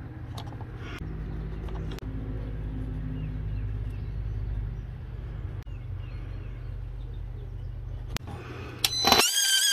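Low, steady engine rumble of a running motor vehicle, growing a little louder and then easing, with a few faint bird chirps and occasional light clicks.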